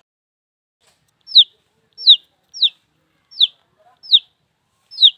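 Baby chick peeping: about a second in, six loud single peeps follow one another, each a short, clear note that falls sharply in pitch, roughly one every three-quarters of a second.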